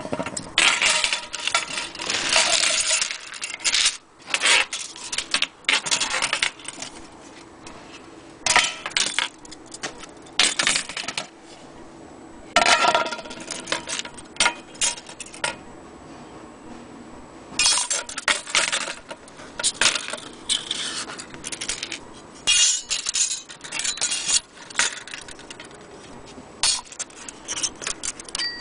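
Metal grandfather-clock parts clinking and jangling in irregular clusters as they are handled.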